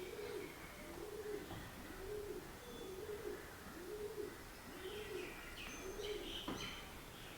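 A dove cooing: a steady series of low notes that rise and fall, about one a second. Small birds chirp higher over it in the second half.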